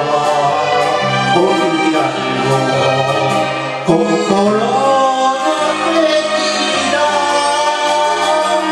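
A man singing an enka song into a microphone over recorded instrumental backing music.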